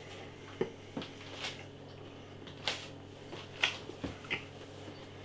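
A person chewing a mouthful of burger bun and breaded soya fillet, with a handful of short mouth clicks and smacks scattered irregularly through it.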